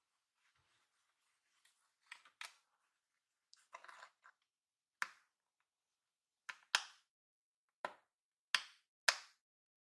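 Sharp clicks and taps from fingers handling a padded vinyl notebook cover and its metal snap-button strap, about eight in all at uneven spacing, loudest near the end, with a short rustle about four seconds in.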